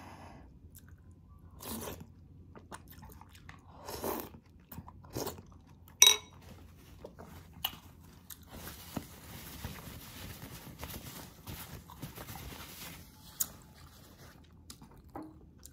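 Close-miked eating sounds: chewing and biting in short bursts, with one sharp clink about six seconds in. A few seconds later comes the steady rustling hiss of a paper towel rubbed over the face.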